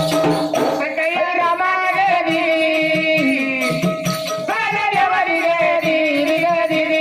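Live Marathi folk music of a gondhal powada performance: a steady drone and a wavering melody line over a regular drum beat of about three to four strokes a second, with jingling rattle.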